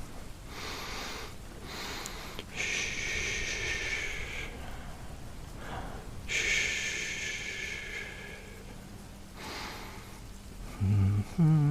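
A man breathing slowly and deeply close to the microphone: two long, hissy breaths of about two seconds each, with softer ones around them. A low hum from his voice starts just before the end.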